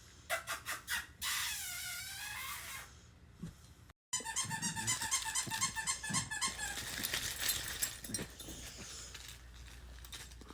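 High-pitched squeaking from puppies at play: a wavering squeal, then a rapid run of short squeaks, about five a second.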